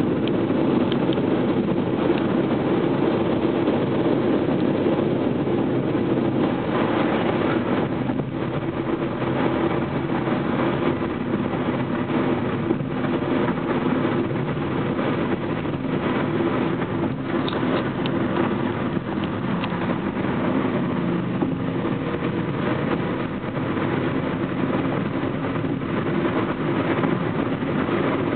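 Steady road and engine noise inside a car's cabin while it cruises at highway speed.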